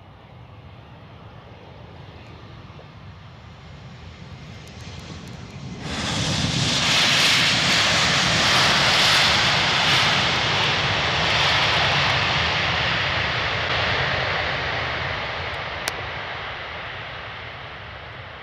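Airbus A320-family jet landing: engine noise builds slowly on approach, then about six seconds in a loud rush of jet noise comes in suddenly, typical of reverse thrust after touchdown, and fades gradually as the aircraft slows on the runway. A single sharp click is heard near the end.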